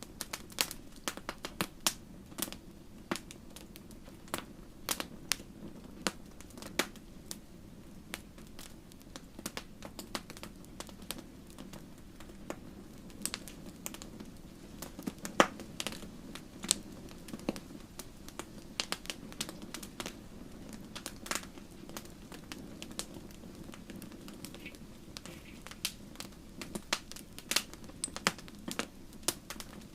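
Wood fire crackling in a fireplace: irregular sharp pops and snaps, several a second, over a low steady rush of flame, with one loudest pop about fifteen seconds in.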